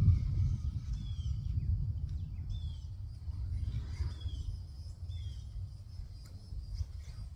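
Rough, gusting low rumble of wind on the microphone, fading over the first couple of seconds, with a bird giving a short falling chirp four times, roughly every second and a half.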